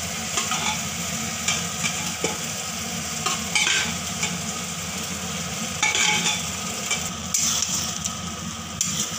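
Boiled red lentils and shredded banana stem sizzling in a hot, oily spice masala in a metal kadai while a flat metal spatula stirs them, with short scrapes and knocks of the spatula against the pan now and then.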